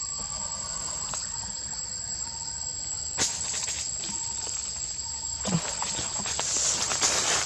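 Steady high-pitched drone of forest insects. A sharp snap comes about three seconds in, and rustling and crackling in the branches and leaves builds near the end.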